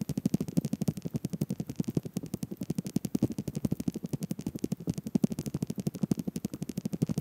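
Boots and trekking poles crunching and clattering over loose rocks, a fast, steady run of many crunches a second.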